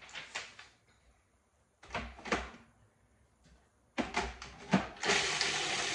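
Several hard plastic clunks as a food processor is handled and closed. About five seconds in, its motor switches on and runs steadily, chopping parsley.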